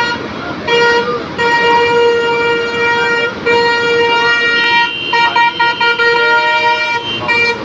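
Vehicle horn honking in repeated blasts, the longest about two seconds, with a second horn at a different pitch joining past the middle, over the steady rush of floodwater.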